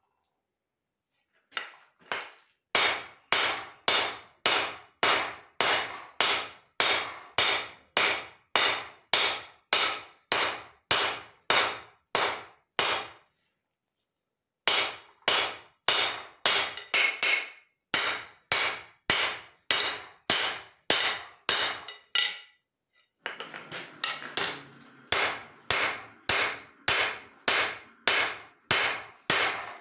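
Hand hammer blows on hot leaf-spring steel being forged into a cleaver, a steady rhythm of about two to three ringing strikes a second. The blows come in runs broken by brief silent gaps, with a few quicker, lighter taps after the last gap.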